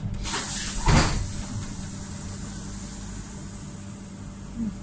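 Tram doors of an old Utrecht sneltram closing: a loud hiss ending in a sharp thump about a second in, over the tram's steady low electric hum.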